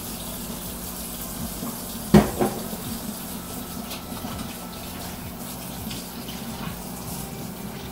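Kitchen faucet running into the sink while hands are rinsed under it, with a sharp knock about two seconds in.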